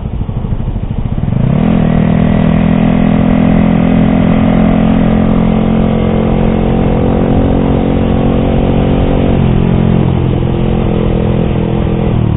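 Yamaha R15 V3's single-cylinder engine through an SC Project exhaust with a dB killer, climbing in pitch about a second in and then holding a steady note for several seconds before dropping slightly and falling away near the end.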